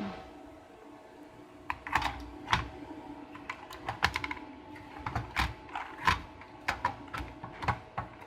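Typing on a Northgate OmniKey Ultra mechanical keyboard with ALPS switches: an irregular run of keystrokes, about two or three a second, starting a couple of seconds in, as the keyboard is tested after new switches were soldered in.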